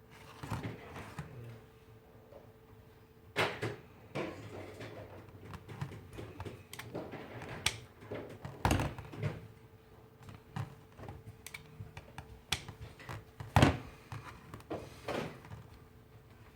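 Scattered small clicks, taps and knocks of small tools and phone parts being handled during a phone repair, with three louder knocks spread through.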